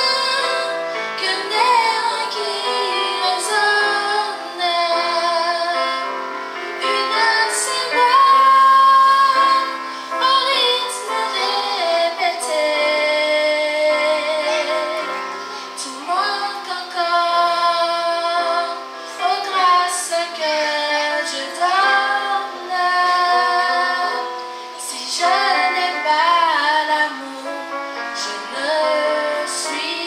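A woman singing a slow song in French into a microphone, amplified, with live keyboard and guitar accompaniment.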